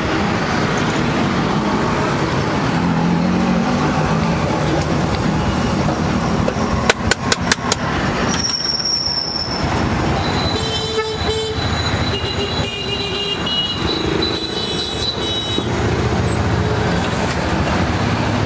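Street traffic noise runs steadily, with vehicle horns sounding several times through the second half. A quick run of five sharp taps comes about seven seconds in.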